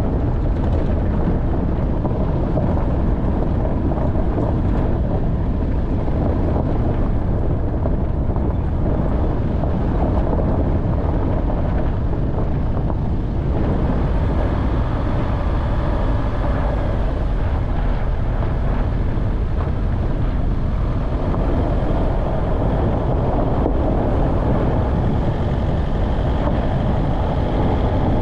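Off-road vehicle driving, a steady engine and drivetrain noise that is heaviest in the low end, with faint higher tones coming in about halfway through.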